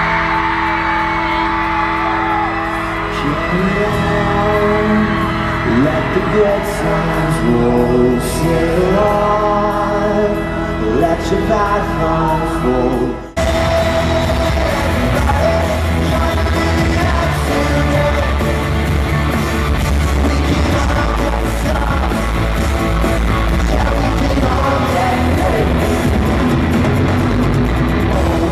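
Live pop-rock band in concert, heard from the crowd in a large arena. Singing over piano, then an abrupt cut about halfway through to the full band playing loud, with electric guitars, bass and drums under the vocals.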